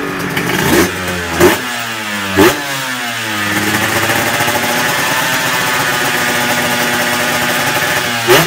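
Honda NSR250 two-stroke V-twin on expansion-chamber exhausts being revved: three quick throttle blips in the first few seconds, each falling back, then held at steadier revs, with another sharp blip near the end.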